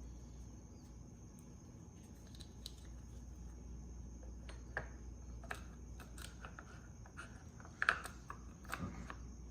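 Scattered light clicks and taps from small parts and tools being handled. Near the end comes a short, louder sound, then a lower-pitched one: a child's burp.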